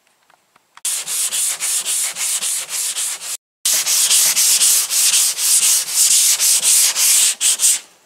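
Hand block sanding with 180-grit sandpaper on guide-coated primer and body filler, quick back-and-forth rasping strokes about three a second, knocking down a high spot to level the panel. It starts about a second in and cuts off dead for a moment about three and a half seconds in before resuming.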